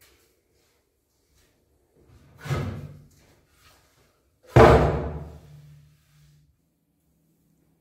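Wood rubbing and knocking as a board is lifted out of a bin of wooden offcuts, then the board laid down on a wooden workbench with one loud thud about halfway through that rings on briefly.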